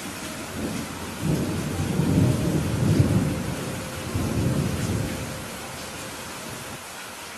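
Thunder rumbling over steady heavy rain: a low rumble builds about a second in, swells for a few seconds and fades out by about five seconds, under a continuous hiss of rain.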